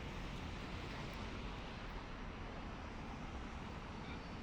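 Steady city street ambience: a constant wash of traffic noise with a low rumble underneath.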